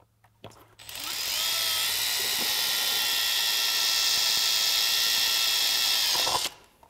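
Makita cordless drill with a small metal bit boring a screw hole through the boat's aluminum transom. The motor spins up about a second in, runs with a steady high whine for about five seconds, and stops near the end.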